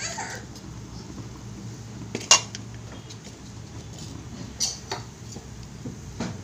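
Perforated metal spatula clinking and scraping against a metal pan as fried beans are stirred. One sharp clink about two seconds in is the loudest, with a couple more near the end.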